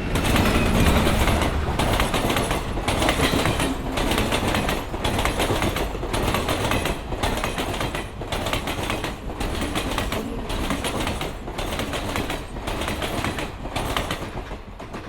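Steam train running along the track in a steady, even rhythm of roughly one beat every second, with wheels clattering over the rails.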